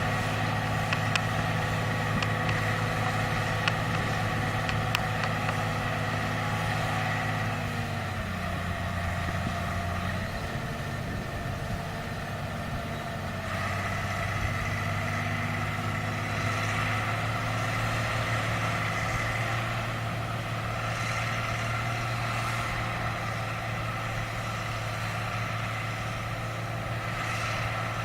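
Massey Ferguson 1200-series tractor's diesel engine running steadily while ploughing. About eight seconds in the engine note drops, and it comes back up about five seconds later. A few faint clicks are heard in the first five seconds.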